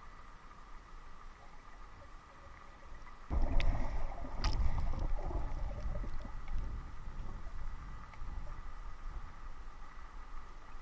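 Underwater sound picked up by a submerged camera: a quiet hush, then about a third of the way in a sudden low, muffled rumbling and sloshing of water moving around the camera as the snorkeler swims. A couple of sharp clicks come in the first loud second or so, and the rumbling eases off toward the end.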